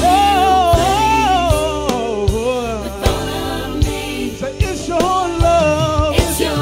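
Live gospel music: a man's drawn-out, sliding vocal runs over a band keeping a steady beat, with a drum hit a little under once a second.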